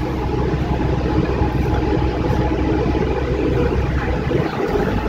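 City bus engine running with road noise, a steady low drone heard from inside the passenger cabin; the low rumble drops briefly near the end.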